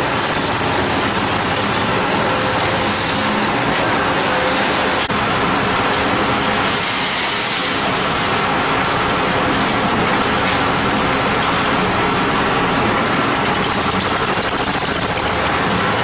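Concrete mixer with pump running steadily: a loud, even mechanical noise with faint steady tones through it, broken briefly about five seconds in.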